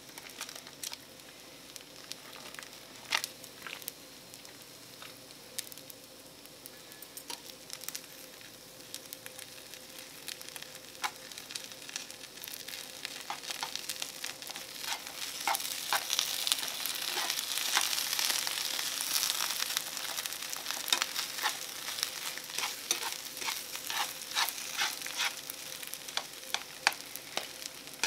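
Egg and butter fried rice sizzling in a small nonstick frying pan on a gas burner as it is stirred with chopsticks, which click against the pan. The sizzle grows louder about halfway through.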